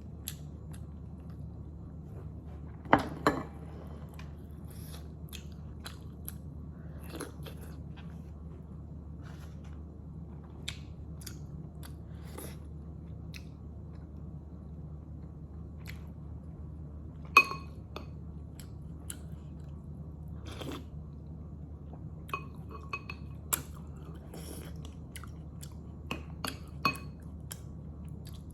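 Close-up chewing and biting of momo dumplings, with small wet mouth clicks throughout. A few sharp ringing clinks of utensils against a dish, two about three seconds in, one past the middle and several near the end; a low steady hum sits underneath.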